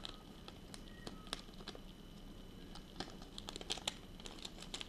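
Small clear plastic pack of offset worm hooks crinkling as it is handled, with light clicks that come more often about three seconds in.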